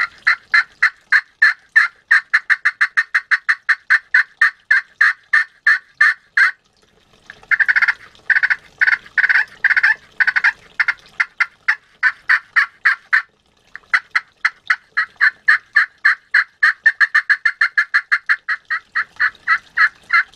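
Wet Corian turkey friction call played with a striker, making rapid runs of short turkey-like notes, about six a second, with a slower, fuller run in the middle and two brief breaks. The call plays the same wet as dry.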